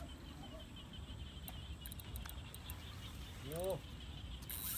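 Quiet night ambience by the pond with a low rumble, faint ticks and a row of small high chirps. About three and a half seconds in there is one short pitched sound that rises and then falls. Just before the end a rushing hiss starts.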